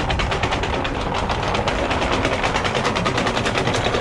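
Anchor chain running over the windlass and bow of a catamaran, the links clattering in a rapid, even rattle: the anchor being let down.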